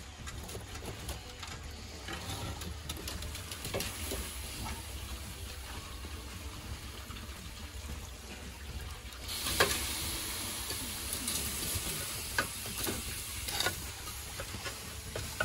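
Wood fire crackling and popping in the firebox of a brick fish smoker, with a louder burst of crackling about nine and a half seconds in.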